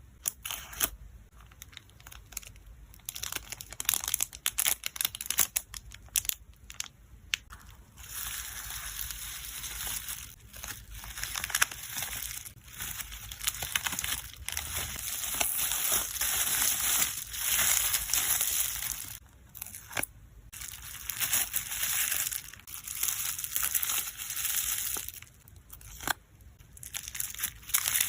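Hands crinkling and rustling crinkly packing material while packing photocards, with scattered light taps and clicks. About eight seconds in it turns into a long stretch of steady crinkling, broken briefly about two-thirds of the way through, before going back to scattered handling sounds near the end.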